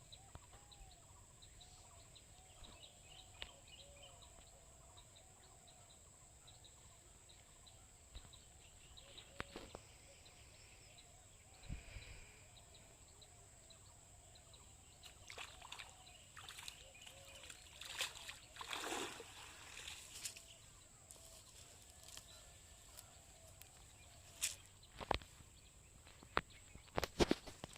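Quiet rural outdoor ambience: a steady high-pitched whine and small birds chirping, broken by scattered knocks and a brief splashy burst about two-thirds of the way through.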